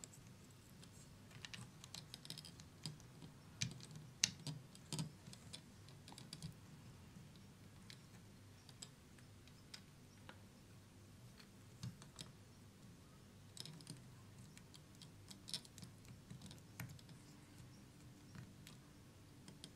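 Faint, irregular clicks and taps of small plastic parts being handled and pressed onto a model truck chassis, a few louder clicks coming in short clusters.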